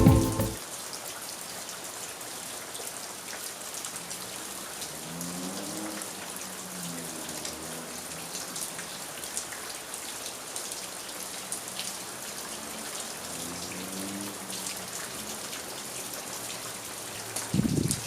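Steady rain falling, with many separate small drop hits in a continuous hiss. A brief louder low sound comes near the end.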